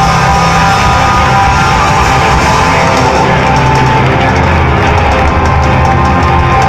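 Rock band playing live and loud: electric guitar, bass guitar and drums.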